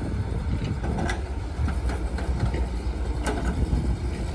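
Heavy diesel earthmoving engine running steadily with a deep rumble, with a couple of sharp metallic knocks about a second in and a little past three seconds.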